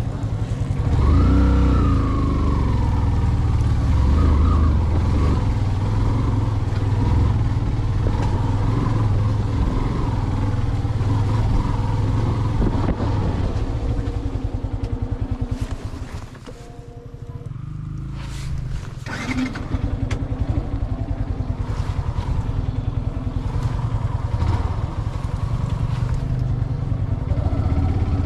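Vehicle engine running under load as it is driven along a rough offroad track, with a rising pitch about a second in and a brief drop in level about two-thirds of the way through before it picks up again.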